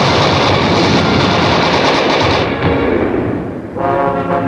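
Cartoon sound effect of rapid machine-gun fire, a loud, dense clatter that stops about three and a half seconds in as orchestral music comes in.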